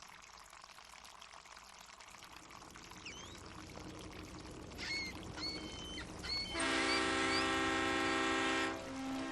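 Harbour water washing steadily while seagulls call, then a boat horn sounds one steady blast of about two seconds, followed by a short lower note.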